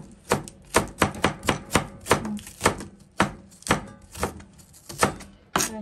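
Kitchen knife shredding long green onions into thin strips, each stroke ending in a sharp tap of the blade on the cutting mat, about two to three cuts a second in a steady rhythm.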